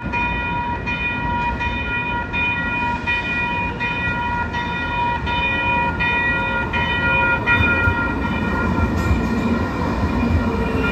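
CAF SRV-I light rail car's warning bell ringing over and over, a little under twice a second, over the rumble of the train pulling into the platform. Near the end a falling whine comes in as the car slows to a stop.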